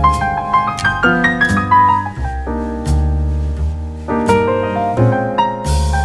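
Background music led by piano, with a steady bass line and quick changing notes.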